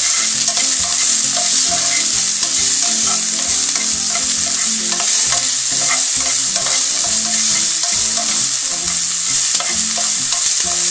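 Diced onion sizzling in hot oil in a frying pan, stirred with a spatula that scrapes and taps against the pan; a steady hiss with scattered scrapes.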